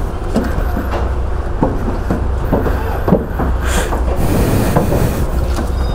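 Steady low vehicle rumble with scattered light knocks and rattles.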